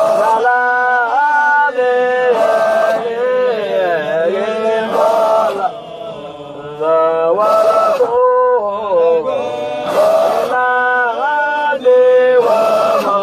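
Male voices chanting a Sufi dhikr nasheed in Arabic in a melodic, repeating line, with a short hiss recurring about every two and a half seconds.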